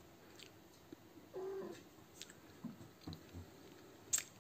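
A Ragdoll cat gives one short mew about a second in. Light taps and a sharp click near the end come around it.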